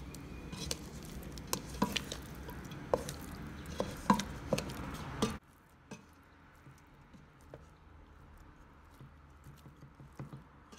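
Wooden spoon stirring cooked beef cubes in rendered fat in a steel pot: wet squishing with irregular knocks and clicks of the spoon against the meat and pot. About halfway the steady background noise drops away abruptly, and fainter stirring ticks go on.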